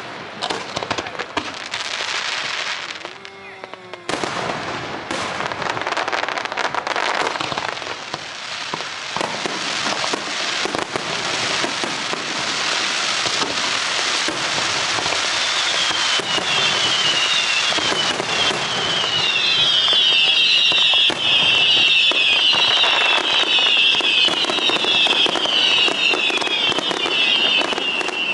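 Fireworks display: dense, continuous crackling and popping bursts, with a brief lull a few seconds in. From about halfway a swarm of short falling whistles joins in and grows louder toward the end.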